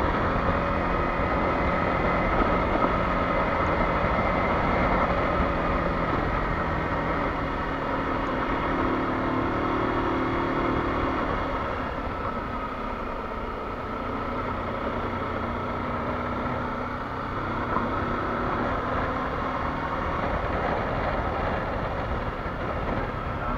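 Kawasaki Versys-X 300's parallel-twin engine pulling steadily in third gear up a dirt climb, with tyre and wind noise.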